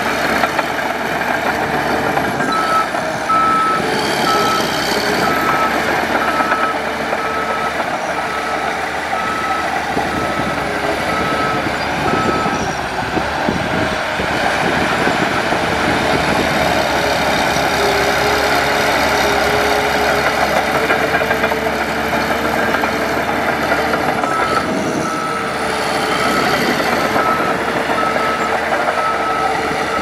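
Heavy earthmoving machinery's diesel engine running steadily, with a reversing alarm beeping about once a second from a few seconds in until near the middle, then starting again near the end.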